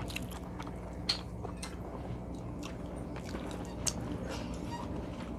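Two people eating lobster at a table: chewing and biting sounds, with scattered sharp clicks and taps, over a steady low hum.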